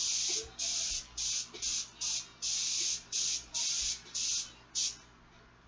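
Airbrush spraying in short hissing bursts, about two a second, as the trigger is pressed and released. The spraying stops about five seconds in.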